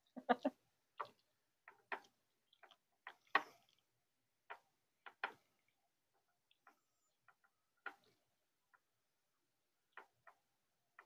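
Irregular light taps and clicks of a spatula against a glass dish as chicken salad is stirred and chopped, a few strikes clustered together and then spread out with short gaps between.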